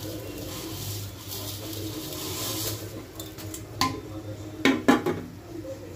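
A metal plate clanks against the rim of a cooking pot three times in the second half: once, then twice in quick succession. Before that, a steady hiss of boiling masala water as vermicelli is poured in.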